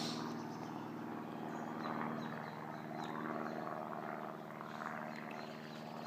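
Steady low mechanical drone of a distant engine, even and unbroken.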